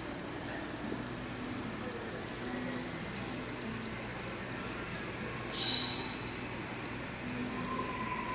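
Steady background hiss with faint distant voices, and one short, high squeak about five and a half seconds in.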